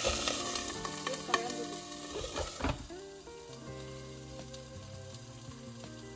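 Gyoza frying in hot oil after a splash of water, a loud sizzling and spitting that dies down over the first three seconds as the pan's lid goes on, with a few clicks of the lid. Soft background music carries on underneath.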